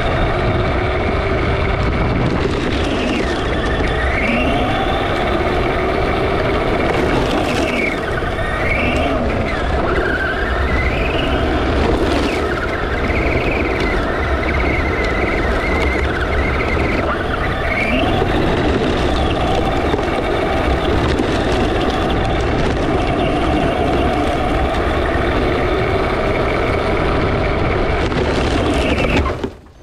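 Onboard sound of a Traxxas RC truck driving over gravel: the motor's whine rises and falls with the throttle over a steady crunch and rattle from the tyres and chassis. Just before the end the sound drops out abruptly for a moment.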